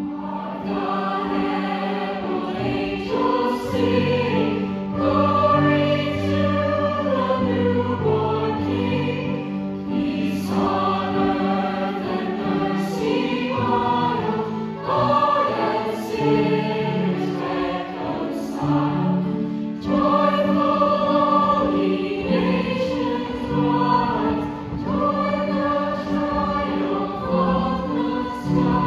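A mixed chorus of young stage performers singing a song together.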